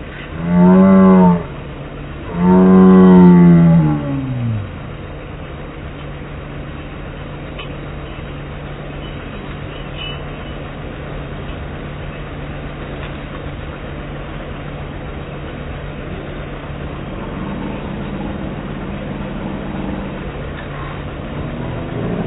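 Slowed-down voices from slow-motion footage: two long, deep, drawn-out calls near the start, the second sliding down in pitch. A steady low hum runs underneath and continues after them.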